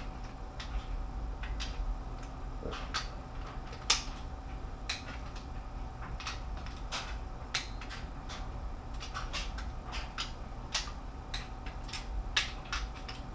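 Torque wrench and socket working the cylinder-head bolts: irregular sharp metallic clicks and clinks as each bolt is pulled toward 20 foot-pounds, some bolts still turning as the head seats onto the block deck. A faint steady hum runs underneath.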